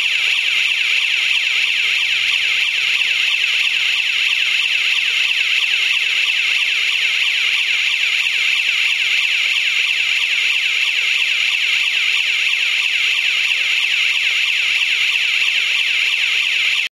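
Electronic siren of a 24 V DC rotating warning beacon sounding continuously: a loud, shrill tone made of fast, evenly repeating pitch sweeps, about three or four a second.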